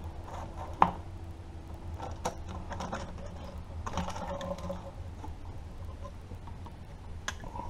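Hands working the PCV valve unit loose from the engine's head cover: irregular clicks and rattles of the parts, with one sharp click about a second in and smaller clusters of clicks a little later, over a low steady hum.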